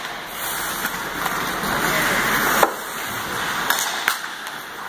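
Ice hockey play: skate blades scraping and carving on the ice in a swelling rush, broken by sharp clacks of sticks on the puck and on each other. The loudest clack comes about two and a half seconds in, with two more later.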